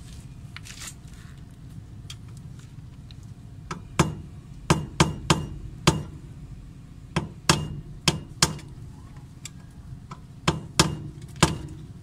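Hammer blows on a tool set against the crimped, staked collar of a rear wheel hub nut, knocking the bent lip back out so the locked nut can turn. About a dozen sharp metallic strikes with a brief ring, in short runs of two to four, starting about four seconds in.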